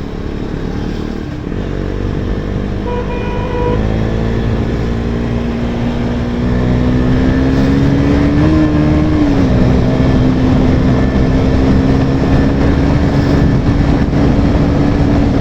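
KTM Duke 250's single-cylinder engine running through an aftermarket exhaust under way, its pitch and loudness climbing slowly as the bike gathers speed, with a brief rise and dip about eight seconds in before it holds steady.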